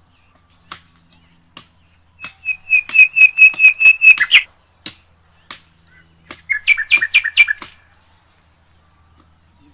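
A bird calling in two loud runs of short, sharp, repeated notes, about six a second. The first run starts about two seconds in and lasts two seconds; the second, shorter one comes about six and a half seconds in. Scattered sharp clicks fall between them, over a faint steady high-pitched tone.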